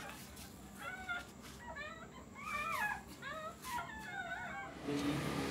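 Dogs whimpering during whelping: a run of about six short, high-pitched cries that rise and fall in pitch.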